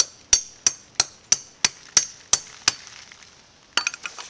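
Hammer blows in a steady rhythm, about three a second, securing plastic sheeting to the sides of a planting bed; the blows stop about two-thirds of the way through. A short cluster of light clinks follows near the end.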